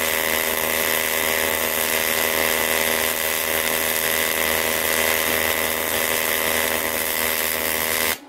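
AC TIG welding arc on aluminium, running steadily with a hiss, then cutting off suddenly near the end as the arc is broken.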